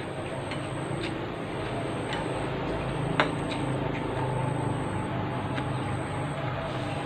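A spoon or cutlery clicks against a bowl of bakso while it is being eaten: a few light clicks and one sharp click about three seconds in, over a steady low hum.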